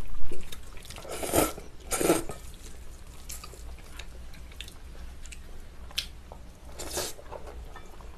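Bibim-naengmyeon noodles being slurped and chewed: a few loud slurps in the first two seconds, then quieter chewing, with another short slurp near the end.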